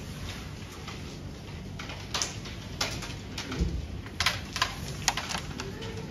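Carrom shot: the striker flicked into the carrom men, giving a quick cluster of sharp clicks from about four seconds in as the pieces knock against each other and the board's wooden frame. A few single clicks and a dull thump come just before it.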